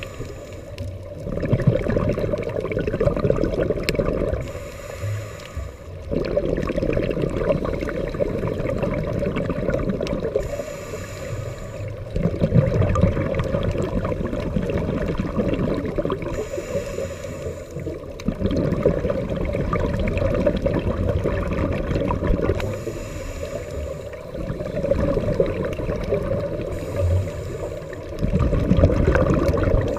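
Scuba diver breathing through a regulator underwater. About every six seconds comes a short hissing inhale, followed by a long, muffled rush of exhaled bubbles; five breaths in all.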